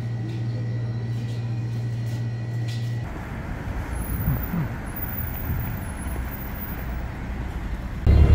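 A steady low indoor hum, cut at about three seconds to a city bus running at its stop, then, near the end, a sudden much louder steady drone of the bus engine heard from inside the cabin.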